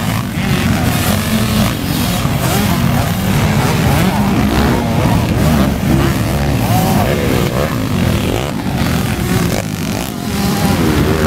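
Several motocross dirt bike engines running hard on the track, their pitch rising and falling as the riders rev, accelerate and back off.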